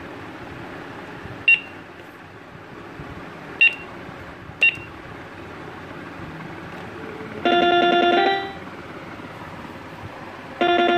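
Budget 54-key electronic keyboard (M-5486) sounding electronically: three short high beeps, then a loud synthetic note about a second long that steps up in pitch partway through, with a second such note starting near the end. A steady hiss runs underneath.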